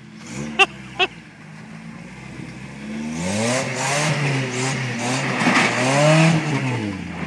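Lifted Toyota pickup's engine revving hard as the truck climbs a slick clay bank, building from about three seconds in and rising and falling in pitch in several surges. Near the start, two short sharp chirps about half a second apart.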